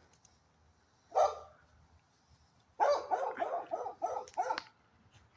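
A dog barking: a single bark about a second in, then a quick run of barks a couple of seconds later.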